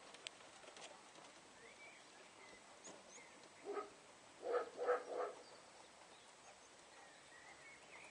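Four short animal calls, possibly dog barks: one a little before the middle, then three in quick succession just after it.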